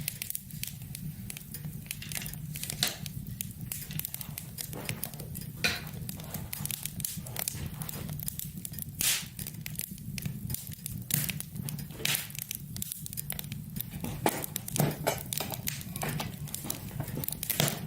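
Wood fire crackling in a small wood-burning stove, with many irregular snaps and pops over a low steady hum.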